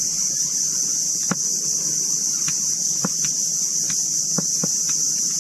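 Steady, high-pitched buzzing of insects in the mangroves, with a scattered few short, light clicks as the rod and spinning reel are handled during a hooked fish.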